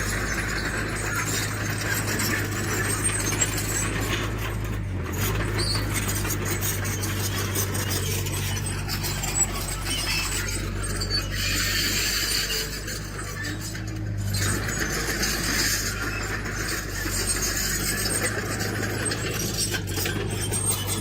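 Diesel engine of a tracked earthmoving machine running steadily, with higher metallic track and linkage noise that swells and fades a couple of times.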